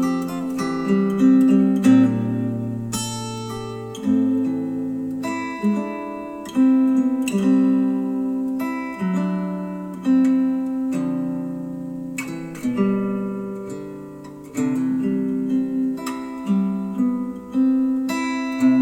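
Acoustic guitar music, chords strummed and notes plucked every second or two and left to ring, played back through bookshelf speakers driven by a Yamaha A-S301 integrated amplifier.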